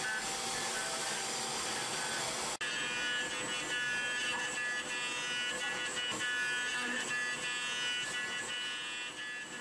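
CNC machining center milling a metal mold core with a bullnose end mill: a steady high spindle-and-cutting whine made of several held tones. About two and a half seconds in it breaks off abruptly and resumes with a different set of tones.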